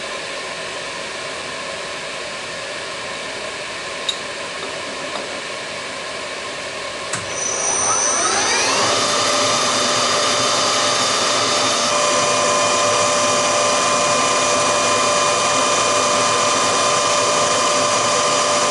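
Small milling machine's spindle running with a steady mechanical whine. About seven seconds in, after a click, the whine rises in pitch and gets louder, then holds steady.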